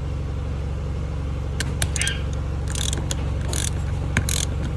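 Ratchet wrench turning beadlock ring bolts: a few sharp clicks, then several short ratcheting strokes from about halfway in, over a steady low hum.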